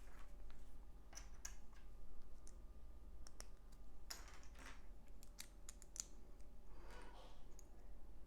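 Small plastic LEGO pieces being handled and pressed together: scattered sharp clicks with some brief rattling, faint.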